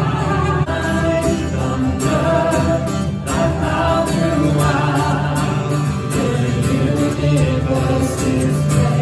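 Christian worship music: a group of voices singing a hymn over instrumental backing with a steady bass line.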